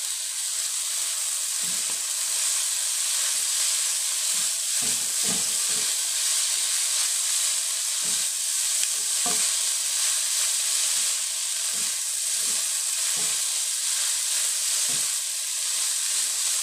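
Yellow egg noodles frying in a hot nonstick wok, a steady sizzle, while they are tossed with two spatulas. Irregular soft knocks and scrapes of the spatulas against the pan come through, about once or twice a second.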